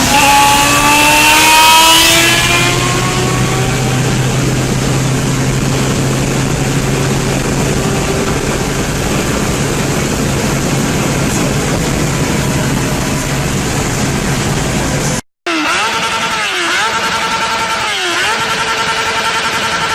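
Motorcycle engine accelerating, its pitch climbing over the first few seconds, then running loud and steady. About fifteen seconds in there is a cut to another engine running at a steady speed, its pitch dipping and recovering twice.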